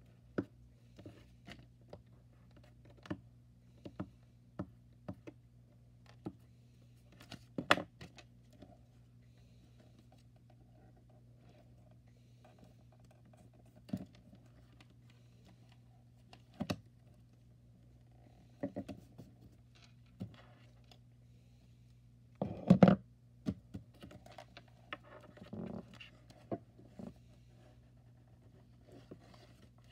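Hands handling a glue stick, a paper cut-out and a spiral notebook on a wooden desk: scattered taps, clicks and scratchy rubbing of paper, with the loudest knocks about eight seconds in and a cluster about twenty-three seconds in. A faint steady hum sits underneath.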